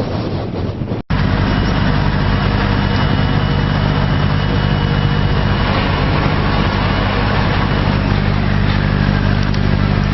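Wind and surf noise on the microphone, then a sudden change about a second in to an engine running at a steady, even pitch.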